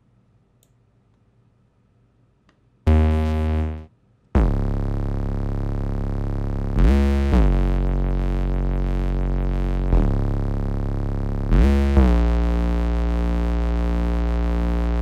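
Synth bass preset from the Alliance Kontakt library played on a keyboard. After about three seconds of near silence comes one short low note, then long held bass notes that slide in pitch from one note to the next.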